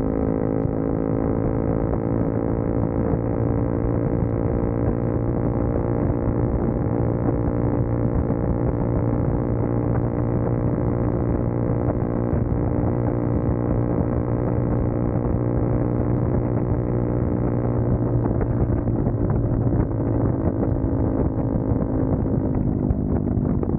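CFMoto 300SS single-cylinder engine running steadily at highway speed, heard from just behind the bike, its pitch creeping up slightly as it accelerates and then dropping near the end as the throttle eases off. Wind rush underneath.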